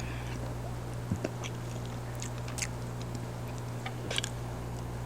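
Faint eating sounds close to the microphone: a few scattered mouth clicks and chewing noises, over a steady low hum.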